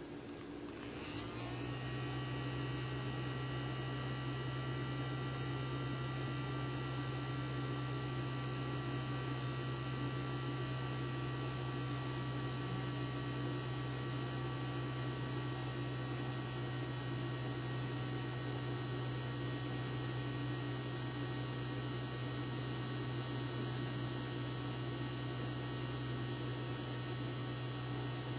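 A steady machine hum that comes on about a second in, gliding briefly up in pitch as it settles, then holds level with a low drone and several thin higher tones.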